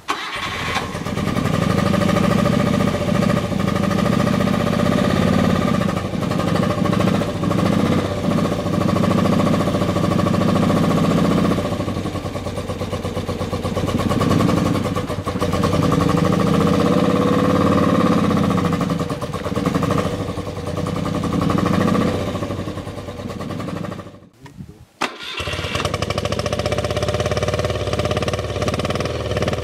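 A 1976 BMW R90/6's freshly rebuilt 898 cc air-cooled flat-twin (boxer) engine running, its level rising and falling repeatedly as the engine speed changes. About 24 seconds in the sound drops almost to silence for about a second, ends with a sharp click, then the engine is heard again.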